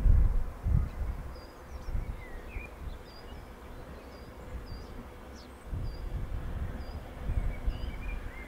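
A small bird repeats a short, high chirp over and over, with a few lower chirps from another bird, over a low, uneven rumble that swells and fades.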